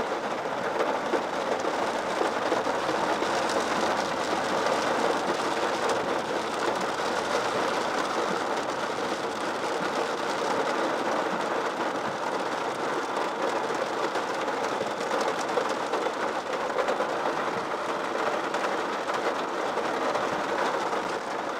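Steady rain on a taxi and its tyres hissing on the wet road, heard from inside the car as one continuous, even rushing noise.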